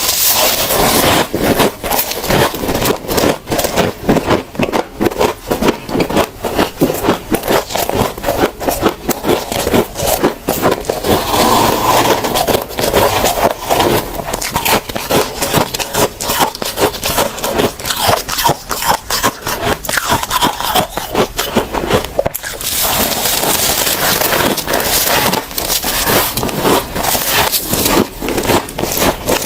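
Close-miked crunching of powdery freezer frost (humidifier frost) being chewed, a rapid run of crunches, turning brighter and harsher for the last several seconds.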